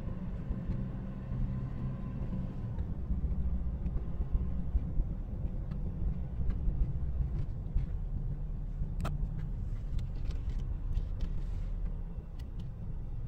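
Steady low rumble of a car's engine and tyres, heard from inside the cabin while driving, with a few faint clicks in the second half.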